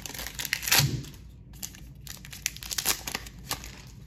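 Foil wrapper of a football trading-card pack crinkling and tearing as it is opened and the cards are pulled out. Sharp crackles, loudest just before a second in, then sparse crackles that thin out after about three and a half seconds.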